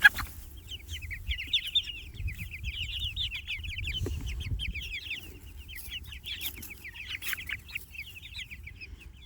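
A flock of young Jersey Giant meat chickens peeping and chirping without a break, many short high calls overlapping.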